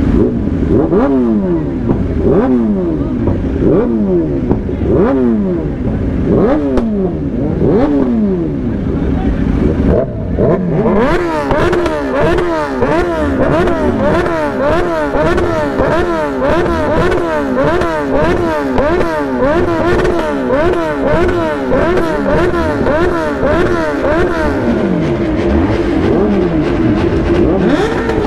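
Superbike engines being revved over and over in quick throttle blips, each rev rising and falling in pitch. From about ten seconds in, more bikes join and the overlapping revs become a dense continuous din.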